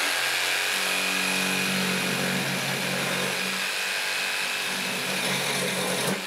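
Electric jigsaw running steadily while cutting a length of metal electrical conduit. The motor cuts off near the end.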